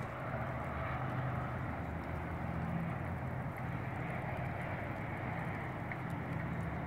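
Steady low drone of a distant engine running under an even rushing hiss.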